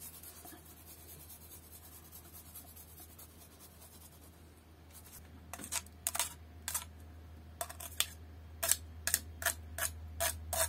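A knife blade scraping grated garlic off a fine metal rasp grater into a bowl: a run of short, sharp scrapes and clicks, about one or two a second, starting about halfway through. Before that, only a faint steady low hum.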